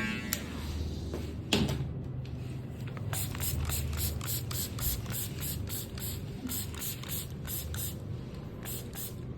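Hand spray bottle misting water in quick repeated squirts, about two to three a second, from a few seconds in. A single sharp knock comes about a second and a half in.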